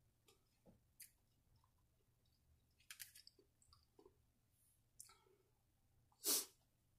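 Faint scattered clicks and rustles as a small card is drawn from a little box and handled, with a short louder hiss about six seconds in.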